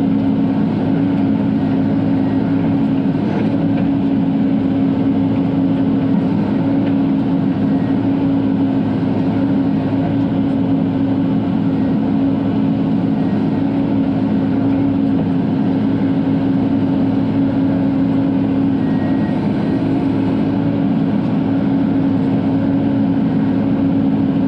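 Bobcat E42 mini excavator's diesel engine running steadily, heard from inside the cab.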